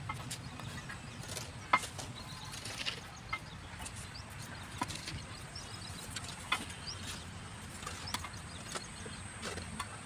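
Irregular sharp clinks and knocks of fired clay bricks being handled and a steel mason's trowel striking brick during bricklaying. The loudest knock comes just under two seconds in.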